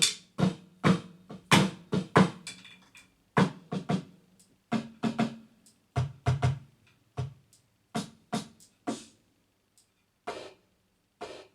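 Drum kit, an electronic kit played through an amplifier, struck in an irregular run of single hits that test its sounds. Some lower, tom-like hits come about six seconds in, and the hits thin out toward the end.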